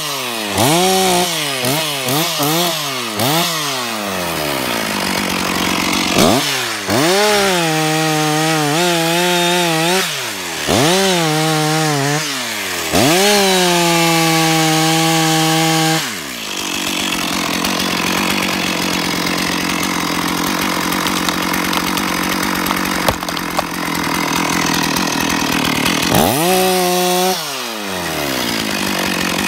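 Stihl two-stroke chainsaw revved in quick throttle blips that rise and fall, then held at high revs for a few seconds. About sixteen seconds in it drops to a lower, steady run, and near the end it revs up once more.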